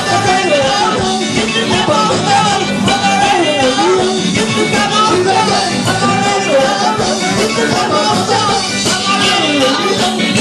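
Live ska band playing a song, loud and continuous, with a steady beat.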